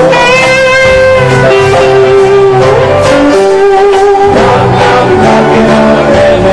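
Live rock band music, loud and steady, led by an electric guitar playing a line of long held notes that glide up and down in pitch, over bass and drums.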